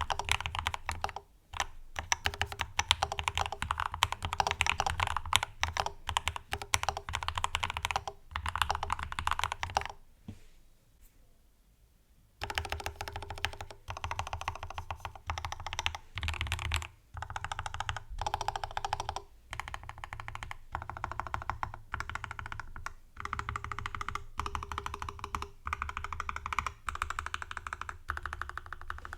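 Fast typing on a mechanical keyboard with Gateron CJ box-stem linear switches, Domikey triple-shot keycaps and an integrated aluminium plate: a dense run of keystrokes, a pause of about two seconds about a third of the way through, then typing resumes in short bursts.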